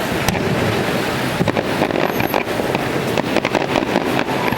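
Fireworks display in its finale, many sharp bangs and crackles in rapid succession over a continuous rumble of bursts.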